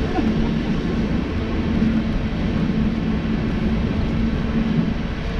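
Electric mobility scooter travelling along a paved path: a steady motor hum over a low rumble, the hum easing briefly near the end.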